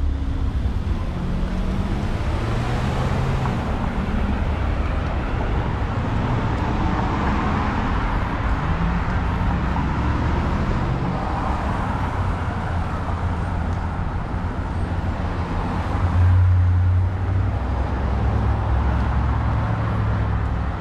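Road traffic on a city street: cars passing, with a steady low rumble. One vehicle's noise swells and fades in the middle, and there is a brief louder rumble a few seconds before the end.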